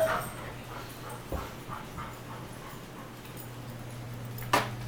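A small dog gives one short, sharp bark near the end, after a soft thump and some quiet scuffling about a second and a half in.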